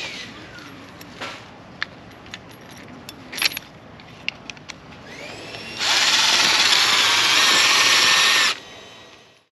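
Cordless drill screwing a tent peg into the ground. A few light clicks and knocks come first, then about halfway through the motor whines up, runs steadily for about three seconds and stops abruptly.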